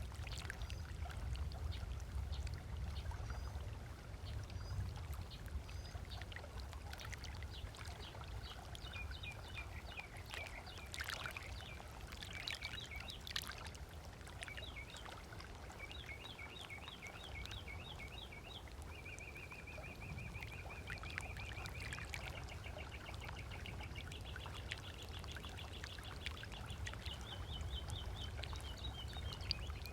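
Water lapping against a lakeshore, with songbirds calling over it. From about seven seconds in there are rapid repeated chirps and trills, including a fast, even trill about two-thirds of the way through.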